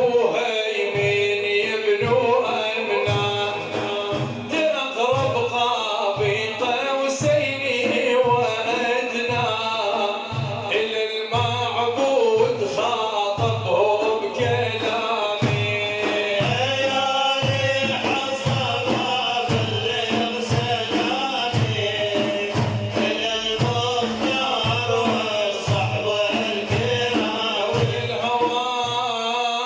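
Arabic devotional song (madih) with voices singing over a steady low drum beat, a little over once a second.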